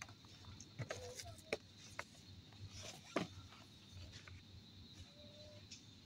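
Boxed insulated bottles being handled in a metal shopping trolley: a scattering of light knocks and rustles from the first three seconds or so, over a faint steady background hum.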